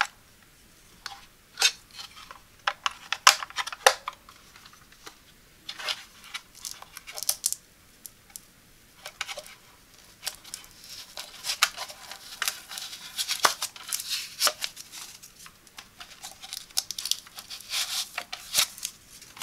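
Plastic clicks and taps as the battery compartment of a plastic digital postal scale is handled, then from about halfway on a long crackly tearing as a protective film strip is peeled off the scale's edges by its pull-tab.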